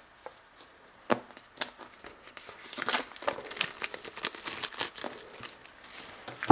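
Clear plastic shrink-wrap being torn and peeled off a sealed iPhone 6 box, crinkling in many irregular sharp crackles that start about a second in.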